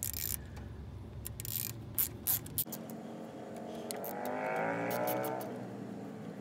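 Ratchet wrench on the valve cover nuts, clicking in a few sharp, irregular strokes. About halfway through, a passing vehicle's engine swells and fades.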